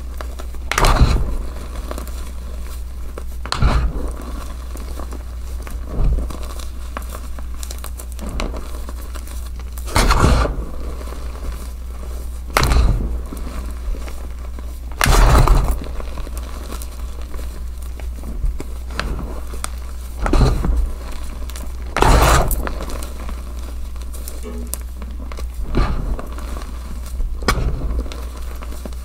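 Hands crushing soft, deeply dyed gym chalk in a tub of loose powder: a crumbly crunch every two to three seconds as the blocks break apart between the fingers. A steady low hum sits underneath.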